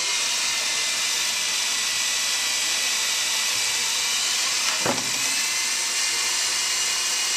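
Two electric drills running at once on weighted test rigs, boring spade bits into wood: a steady motor whine with the hiss of the cutting. There is a brief knock about five seconds in.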